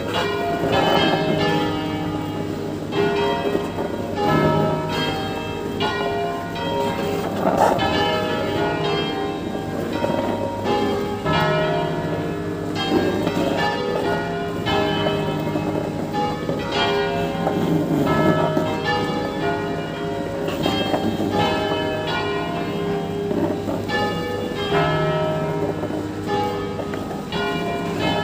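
Church bells of a five-bell ring in E-flat, cast by Giorgio Pruneri of Grosio and by the Ottolina founders, rung by hand: quick, repeated strikes that overlap, so the bells keep sounding together.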